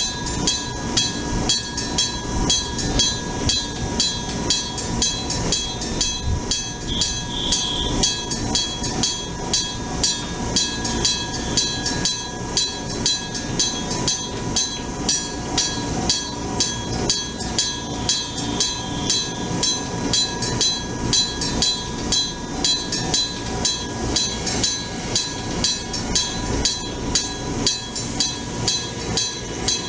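Electric level-crossing bell, a Nippon Signal EG1003 running on 100 V AC, ringing continuously with an even clang of about two strokes a second.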